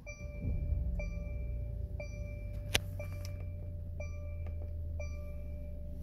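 Mercedes-Benz E-Class W213 seat belt warning chime sounding once a second, six times, then stopping, over the low hum of the just-started engine idling. With the warning disabled by coding, it chimes only a few times at start-up and then switches off. One sharp click a little before halfway.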